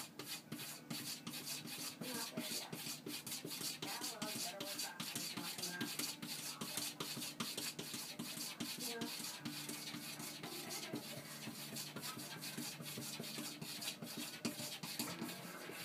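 Cat pawing repeatedly at a closed wooden door: a steady run of scraping, rubbing knocks, a few strokes a second, as it tries to be let in.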